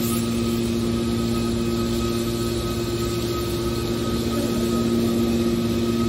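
Hydraulic power unit of a scrap metal baler running: a steady hum with a low fixed whine, a little louder near the end.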